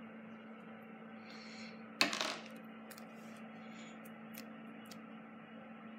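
Small food colouring container handled over a plastic tub: one short, sharp plastic crackle about two seconds in, then a few faint ticks, over a low steady hum.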